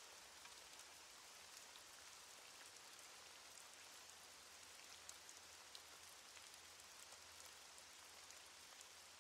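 Faint steady rain: a soft even hiss with scattered ticks of drops.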